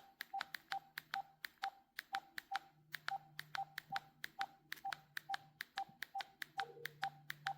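Cordless phone handset keys pressed over and over, each press giving a click and a short beep, about two or three a second, as the menu is scrolled through. A faint low hum runs underneath.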